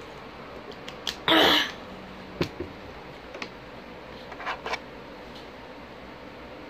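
Drinking from and handling a plastic water bottle: a short, loud rush of noise about a second and a half in, then a few light clicks and knocks.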